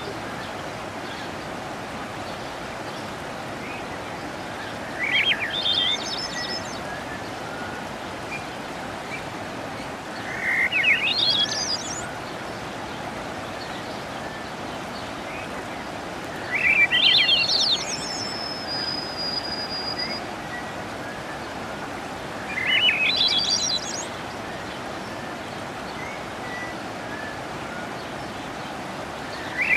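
Small mountain waterfall rushing steadily, while a songbird sings a short phrase that climbs in pitch, repeated about every six seconds. After the third phrase comes a thin, high whistled note.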